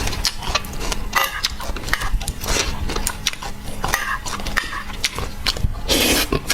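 A person chewing and biting crunchy food close to the microphone: a run of short crunches and wet mouth clicks, with a louder, longer crunching burst about six seconds in.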